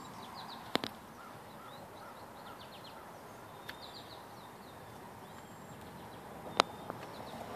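Small birds chirping in short repeated calls over steady outdoor background noise, with a sharp click a little under a second in and a louder one near the end.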